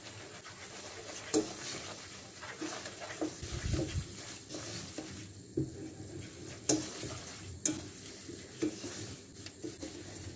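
Wooden spoon stirring semolina as it toasts in melted butter in a stainless steel pot: a steady sizzle, with the spoon knocking against the pot at irregular moments.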